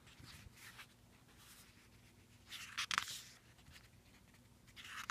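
Pages of a 60-page paper booklet being flipped by hand: a soft paper swish about two and a half seconds in that ends in a small snap, another near the end, and faint rustling between.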